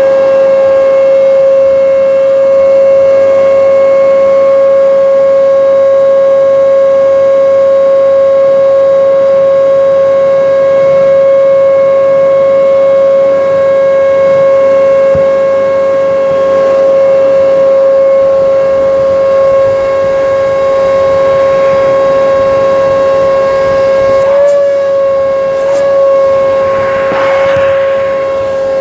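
Hoover Breeze vacuum cleaner running, its motor giving a loud, steady high whine. The pitch wavers briefly near the end, with a couple of clicks.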